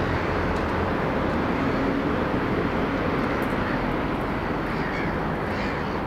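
2TE116U diesel locomotive running unseen, a steady low engine drone, with a crow cawing near the end.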